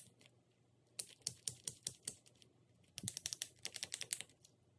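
Bicycle thumb shifter, its shell off, ratcheting as the lever is pushed back and forth through its index positions: two runs of quick, sharp clicks. This comes after cleaning and re-lubing, when the shifter works well again.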